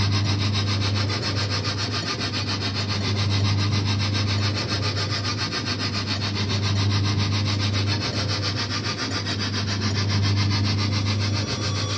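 Coin-operated kiddie train ride running: a steady low motor hum under a rough, rubbing mechanical noise from the drive, rising and falling in level every three to four seconds.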